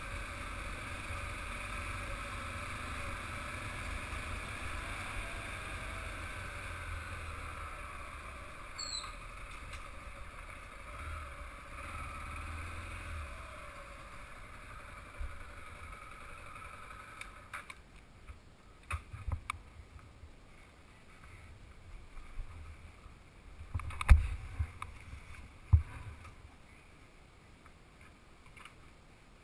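Motorcycle running at low speed with wind noise on the helmet-mounted microphone; the engine and wind cut out about two-thirds of the way in, as the bike is stopped and shut off. A few sharp knocks and thumps follow, the loudest about three-quarters through.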